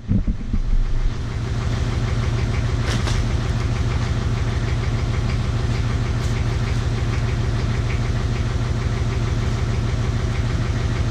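Excavator's diesel engine running steadily at idle, with an even low pulse.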